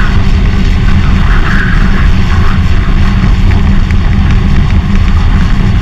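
International Harvester tractor's engine running steadily at road speed while towing, buried in heavy wind rumble on the outside microphone, with light rattling clicks from the towed implement.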